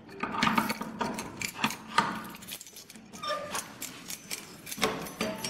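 An irregular run of small clicks and metallic rattles, as of things being handled, with a couple of brief tonal squeaks in the middle and near the end.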